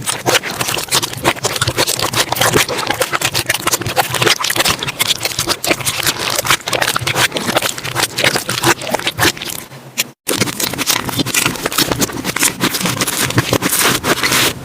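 Slime being squeezed and kneaded by hand, with a dense run of wet crackling and popping clicks. The sound breaks off briefly about ten seconds in, then picks up again.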